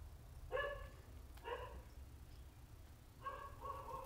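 An animal calling several times: short pitched yelps, each under half a second, then a longer wavering call starting about three seconds in.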